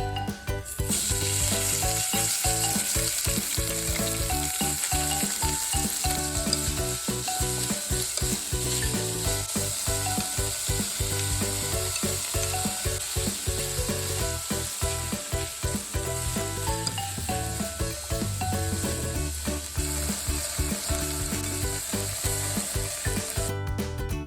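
Pork stir-fry sizzling in a frying pan as it is stirred. The sizzle starts about a second in and cuts off near the end.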